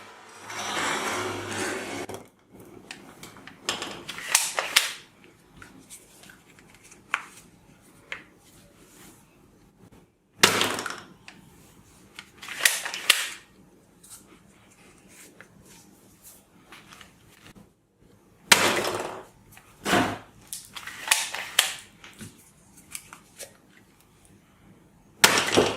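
Plastic toys and packaging being handled: a short stretch of rustling, then scattered sharp plastic clicks and knocks every few seconds, some in quick clusters.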